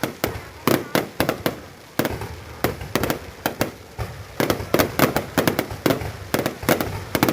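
Fireworks going off in quick, irregular succession: many sharp bangs and pops, several a second, often overlapping.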